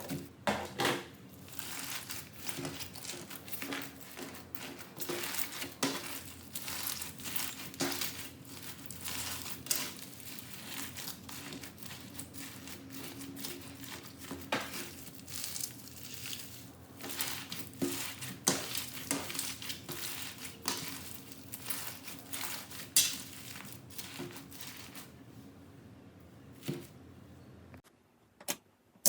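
Slime being squeezed and pressed by hand, giving an irregular stream of small crackles and pops over a faint low hum. It stops a little before the end, and a few separate clicks follow.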